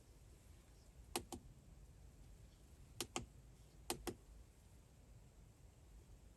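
Small plastic buttons on a dash cam clicking as the settings menu is stepped through: three quick double clicks, about 1, 3 and 4 seconds in, over near silence.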